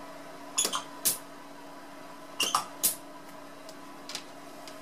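Foot-pedal pneumatic solder-paste dispenser firing short puffs of air through the syringe: two pairs of sharp hissing clicks, each pair about half a second apart, then a fainter one near the end, over a steady low hum.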